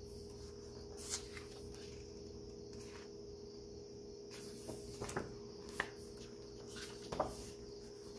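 Hands handling a hardcover photo book: a few faint rustles and taps on the pages, with a page turned in the second half, over a steady low hum.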